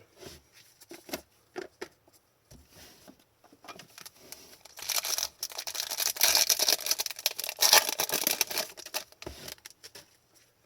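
Trading cards and their packaging being handled: scattered light clicks and slides of card on card, then about five seconds of dense rustling and crinkling starting around four and a half seconds in.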